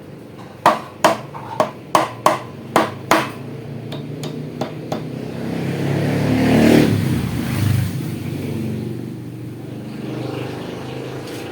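A quick series of about seven sharp knocks, then an electric air compressor's motor starting up and running. It swells to its loudest around the middle, then settles to a steady run.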